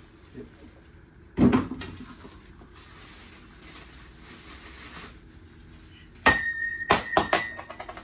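Plastic wrapping and cardboard packing handled, with a thump about a second and a half in. Near the end a small stainless-steel espresso filter basket clatters with several sharp ringing clinks, the strikes coming closer together like a bounce on a hard floor; the first strike is the loudest.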